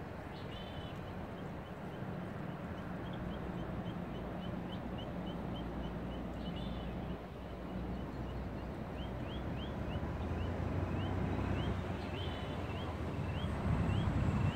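An animal chirping over and over, about two short high notes a second, the notes turning into quick upward sweeps partway through, with a different brief call breaking in three times. Under it runs a low steady rush that grows louder near the end.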